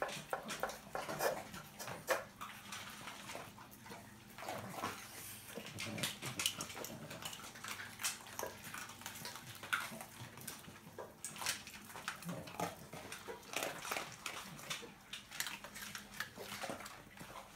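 Several dogs eating dry kibble from bowls: chewing, crunching and licking, with many short irregular clicks and knocks from the bowls.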